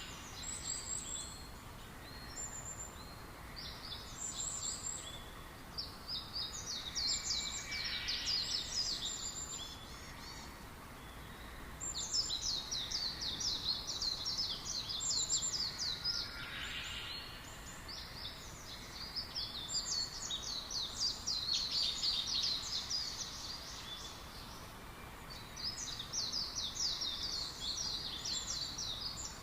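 Small birds chirping in fast chattering runs of high notes, each run several seconds long with short pauses between, over a steady low background hiss.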